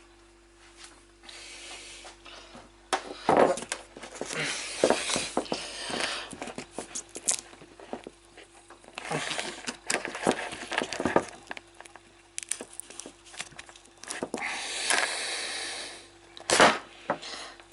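Repeated knocks, clatter and cracking as a stuck ice cube is worked free of a freezer ice mould, over a faint steady hum.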